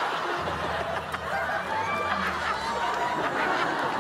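Studio audience laughing, mixed with chuckles and scattered voices.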